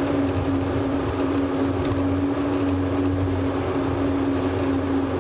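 Car driving at a steady speed: constant road and engine noise with a steady low hum.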